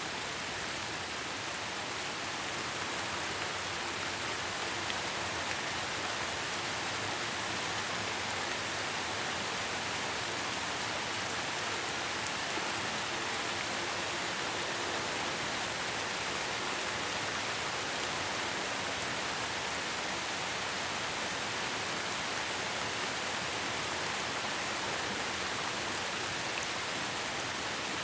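Steady rain falling: an even, unbroken hiss of drops with a few faint ticks of single drops.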